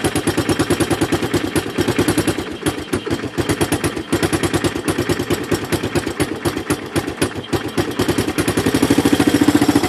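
Honda ATC200ES's air-cooled single-cylinder four-stroke engine running on choke just after a cold start on a nearly dead battery, with a rapid pulsing exhaust beat. It runs a little unevenly about three seconds in, then comes up louder and steadier near the end.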